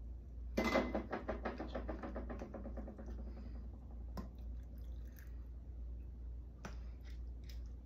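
Plastic canning bubbler stick worked up and down inside a glass jar packed with cooked ground meat and broth. It makes a quick run of squishing, scraping strokes that slow and fade over about two seconds, which frees trapped air so the liquid settles down. A few light clicks follow.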